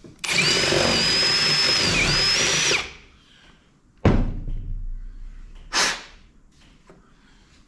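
Power drill running for about two and a half seconds, cleaning out a rivet hole in a truck cab's window frame, its whine dipping briefly in pitch about two seconds in. A sharp knock follows about four seconds in, then a short burst of noise near six seconds.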